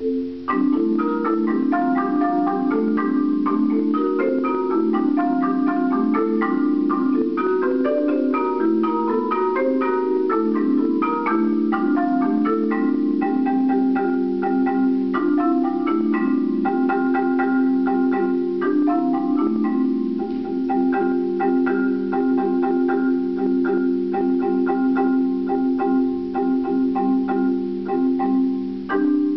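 Solo marimba played with mallets: a quick, flowing stream of struck notes over steady held low notes.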